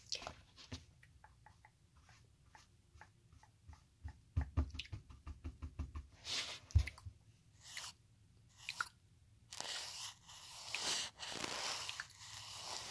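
A makeup brush and fingers scratching, tapping and brushing right against the phone's microphone: a run of quick clicks in the first half, then swelling brushing strokes.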